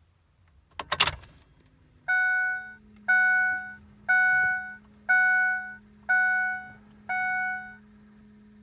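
A sharp clunk about a second in, then the truck's dashboard warning chime dinging six times, about once a second, over a steady low hum.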